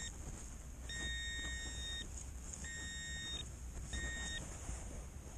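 Handheld metal-detecting pinpointer probing a dig hole, sounding a steady high electronic tone in on-off beeps of about a second each, with a shorter one about four seconds in, as it picks up buried metal, a chunk of iron.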